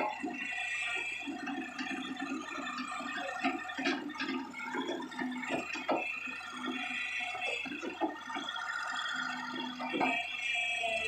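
Kobelco SK120 excavator working in a wet pond: engine and hydraulics running, with water and wet mud splashing and several knocks from the bucket.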